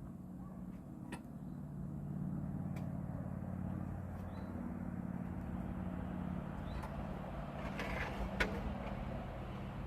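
An engine running steadily at a constant speed, with a few sharp clicks and a louder tap about eight seconds in.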